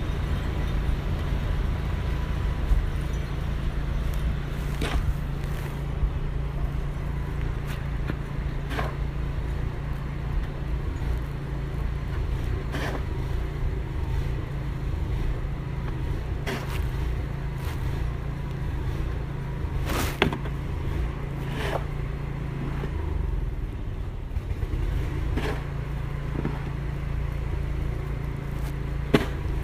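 A steady low mechanical hum, like a motor running, with a dozen or so short clicks and knocks scattered through it.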